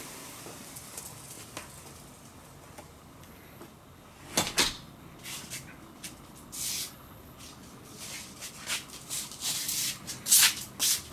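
A patio door being handled, with one sharp knock about four seconds in, then a string of short scuffs and rustles like shoes on a concrete patio, the loudest near the end.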